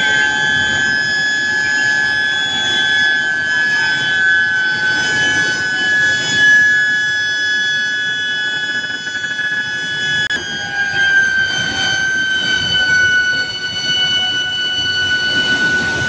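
Medium-frequency induction billet heater whining: a steady high-pitched tone with overtones that drops slightly in pitch about ten seconds in. A low rumble runs under it.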